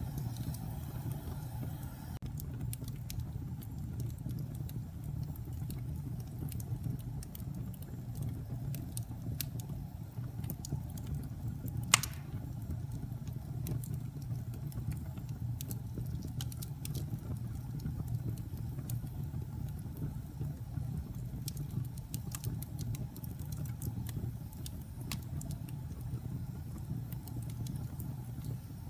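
Wood fire burning in a fireplace: a steady low rumble with scattered small crackles, and one loud pop about twelve seconds in.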